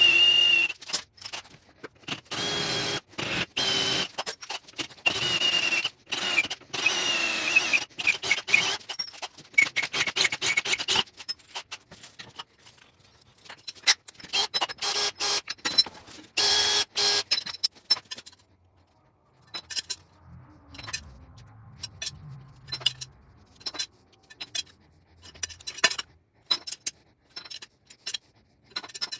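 Angle grinder grinding steel, its high whine over a harsh scraping hiss, in choppy bursts that stop and start abruptly. Later it gives way to a scattered string of short sharp clicks and ticks.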